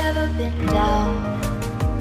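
Background pop song: a steady beat with sustained chords between sung lines.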